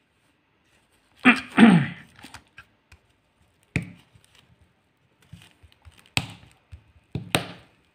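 Plastic back cover of a DZ09 smartwatch being pressed and snapped shut: a longer creaking handling noise just over a second in, then a few sharp clicks and taps as the cover seats into place.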